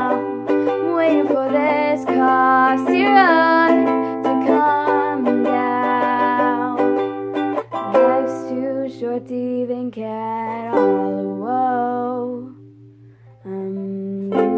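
Ukulele strummed under a voice holding long, wordless notes that bend in pitch. The music dips away for about a second near the end, then picks up again.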